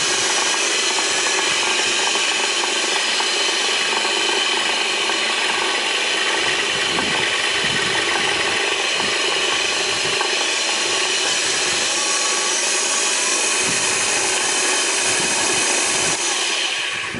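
Felder Variofeed 4 power feeder running unloaded, its electric motor and gearbox turning the four orange feed wheels with a steady mechanical running sound.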